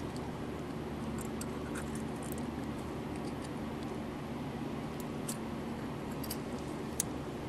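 Faint clicks and taps from a plastic marker pen and a metal marking-head part being handled and fitted together, over a steady background hum. One sharper click comes near the end.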